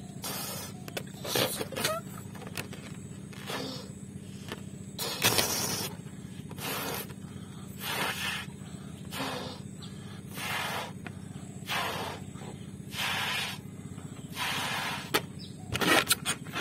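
Large latex balloon being blown up by mouth: a string of breathy puffs of air about every second or so, with quick breaths between them, over a steady low hum. A few sharp clicks come near the end.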